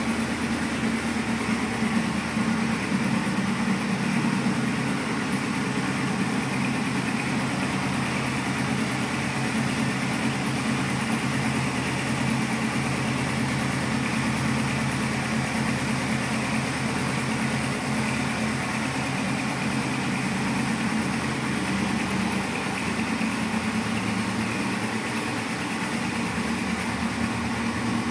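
Suzuki GS500F's air-cooled parallel-twin engine idling steadily, with no revving.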